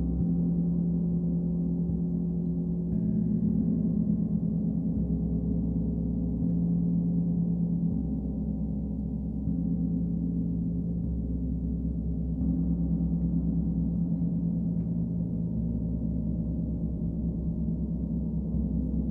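Two large hanging gongs stroked softly with felt-headed mallets, building a continuous deep, sustained drone that swells again with each new stroke every few seconds.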